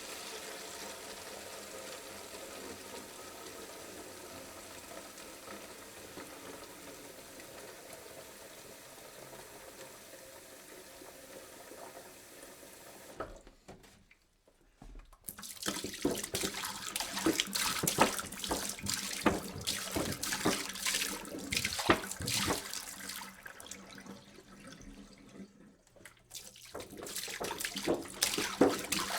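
Water poured into a jug: a steady pouring stream for the first dozen or so seconds, then a short break. The pour resumes about 15 s in as a choppier, splashier stream, stops briefly again near the end, and starts once more.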